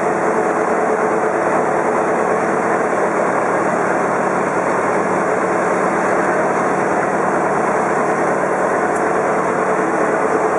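A sampan's motor running steadily under way, heard from on board: a constant loud drone with a low hum that does not change.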